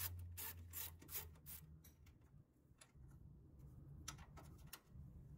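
Faint clicking of a socket ratchet undoing the 10mm bolt of a radiator-support ground strap. A string of sharp ticks comes in the first second and a half, then a few more about four seconds in.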